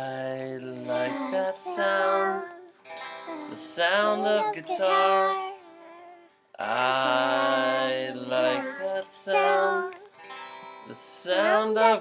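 Guitar strummed with singing over it, in two similar phrases. The music stops briefly about six seconds in and then starts again.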